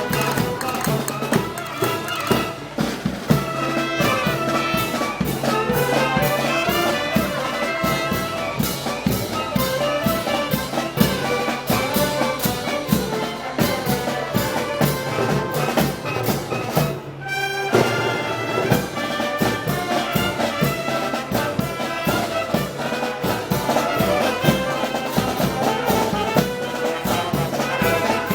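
Brass band music: trumpets and trombones playing held melodic lines over a steady drum beat, with a short break about seventeen seconds in.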